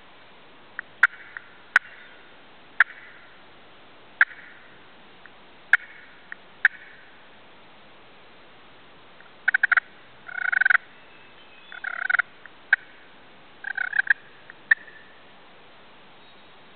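Wild turkeys gobbling: four rapid, rattling gobbles in the second half. They follow a string of about six sharp single call notes, a second or so apart.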